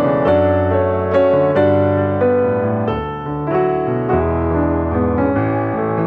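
Background piano music, a slow melody of struck notes that ring on and overlap.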